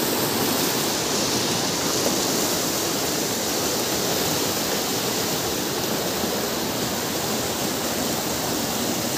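Steady rush of a fast mountain river running over rocks.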